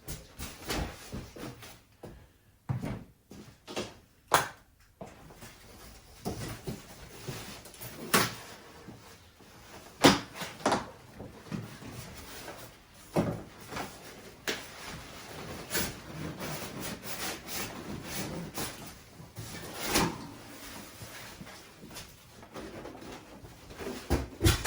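Exercise-bike parts being unpacked from a cardboard box: irregular knocks, thuds and scraping as cardboard packing and parts are handled, the loudest knock about ten seconds in.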